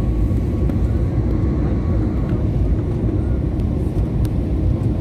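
Steady engine and airflow noise of a jet airliner in flight, heard inside the passenger cabin, loud and deep.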